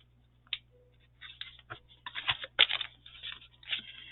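Paper and stickers being handled: a run of short, irregular rustles and small clicks that starts about a second in.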